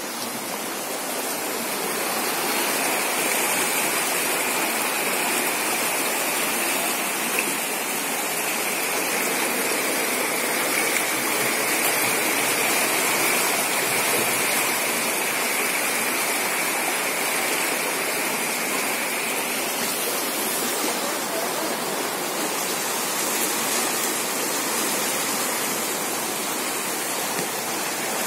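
Floodwater rushing past in a steady, unbroken wash of noise.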